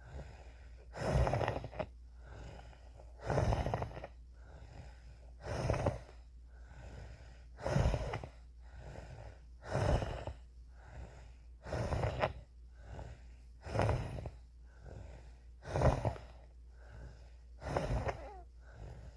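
A person breathing with a wheeze in a steady rhythm: a loud breath about every two seconds, each followed by a softer one, nine loud breaths in all.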